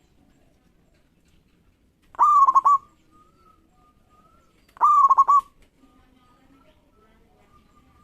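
Zebra dove singing: two short cooing phrases about two and a half seconds apart, each a quick run of a few notes, with faint softer notes between them.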